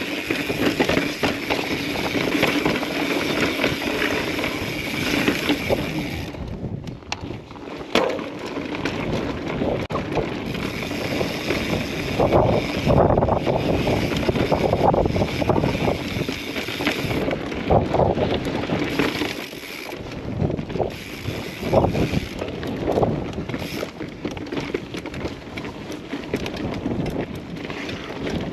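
Mountain bike riding over rough sandstone slickrock: tyres rumbling and the bike clattering and thumping irregularly over square-edged rock steps, with wind noise on the microphone.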